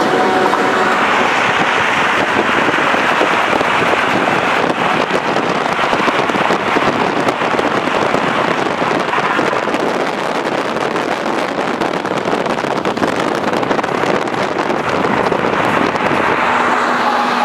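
Steady rushing wind and road noise of cars travelling at highway speed, with wind buffeting the microphone.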